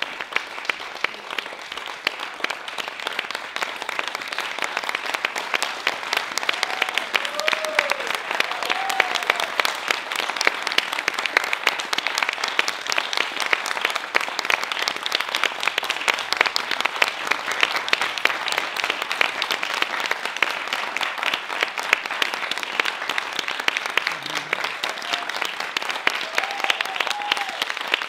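Audience applauding steadily, a dense wash of many hands clapping, with a few short calls from the crowd about a quarter of the way in and again near the end.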